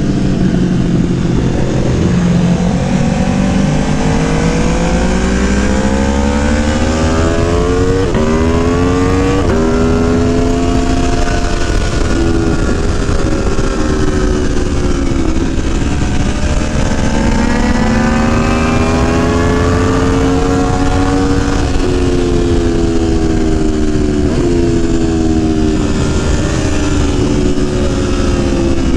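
Aprilia Tuono V4 1100's V4 engine under hard acceleration on track. The revs climb with two quick drops at upshifts about a third of the way in, then fall away gradually, climb again and fall once more. Heavy wind noise sits under the engine throughout.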